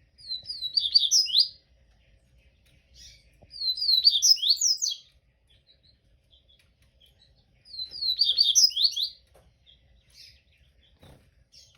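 Papa-capim seedeater (Sporophila) singing: three quick, high, chirping song phrases, each about a second and a half long, a few seconds apart, with a few faint single notes between them.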